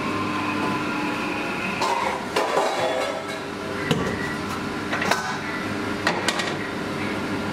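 Stainless-steel kitchenware clanking at a metal sink as a colander and pans are handled and set down: a handful of sharp metallic knocks from about two seconds in, over a steady machine hum.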